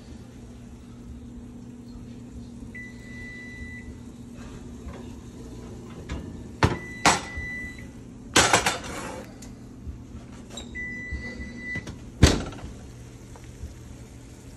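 An oven beeps, one long beep about every four seconds, over a steady hum. A cast-iron skillet scrapes and clanks on the oven rack twice as it is pulled out, then lands on the stovetop with a loud clank near the end.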